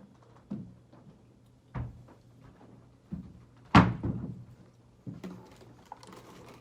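A few separate thumps and knocks, one much louder about four seconds in, over a faint steady hum.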